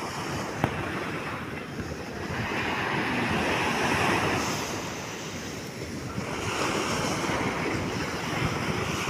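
Sea surf breaking and washing up the beach, the rush of water swelling twice, with a single sharp knock just over half a second in.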